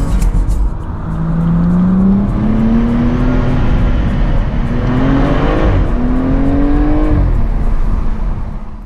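BMW M235i's turbocharged inline-six accelerating hard, heard from inside the cabin: the engine note climbs steadily, drops sharply at a gear change about six seconds in, then climbs again.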